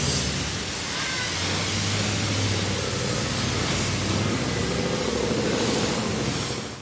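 Self-serve car wash high-pressure wand spraying water onto a pickup truck: a steady hiss of spray with a low, steady hum underneath.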